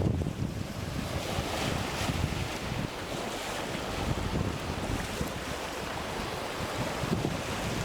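Wind buffeting the microphone in gusty low rumbles over a steady wash of choppy, confused sea waves throwing up spray.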